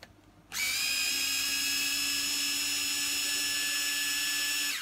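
Cordless electric screwdriver running with a steady whine for about four seconds, starting about half a second in and stopping just before the end, as it unscrews the two-part axle of a Bugaboo Bee Plus stroller's front wheel.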